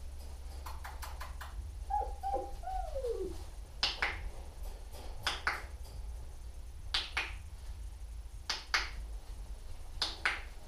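Puppy whimpering in three short falling whines about two seconds in, among sharp clicks that come in pairs about every second and a half.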